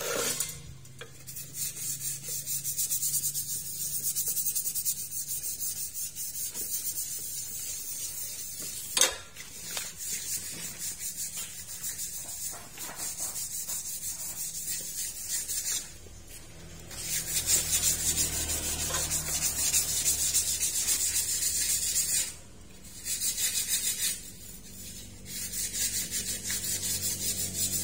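Scratchy, hissing scrape in long stretches with brief pauses, from work at the air fryer's thermal-fuse joint as its aluminium wire is cleaned and soldered. A sharp click comes about nine seconds in, and a low hum joins about halfway through.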